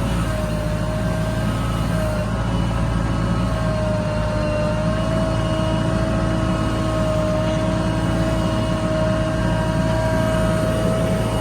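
Heavy diesel engine running steadily, a constant low hum with a steady high whine over it.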